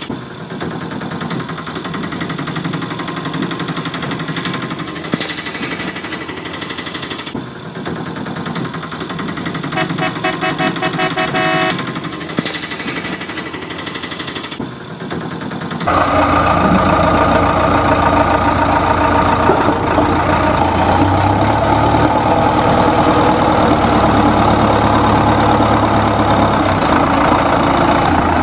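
Vehicle engine running sounds, with a short run of horn-like beeps about ten seconds in. Just past halfway the sound jumps suddenly louder to a steady, deep engine running.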